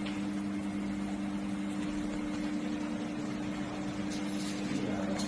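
Fiber laser welding machine and its water chiller running with a steady hum: two steady low tones over an even hiss.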